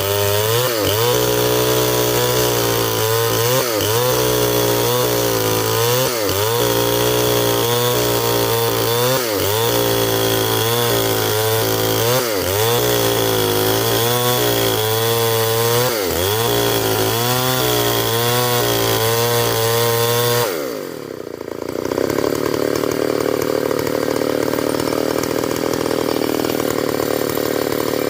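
Stihl 070 chainsaw running at high revs while ripping a log lengthwise into beams. Its engine note dips and recovers every couple of seconds as the chain bites into the wood. About twenty seconds in, the revs drop sharply, and the saw runs at a steady lower speed for the rest of the time.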